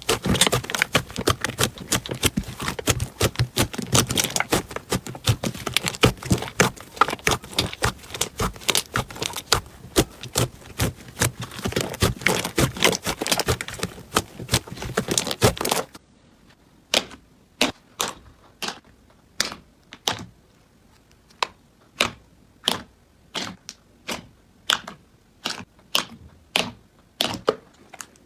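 Crunchy slime being handled: dense crackling and clicking for about the first sixteen seconds, then an abrupt change to separate crisp clicks or pops every half second or so.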